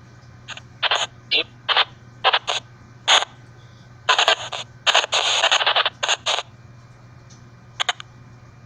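A ghost box (white-noise EVP) app playing through a small speaker: irregular short bursts of hiss and chopped sound fragments, with one longer burst about halfway through, over a steady low hum.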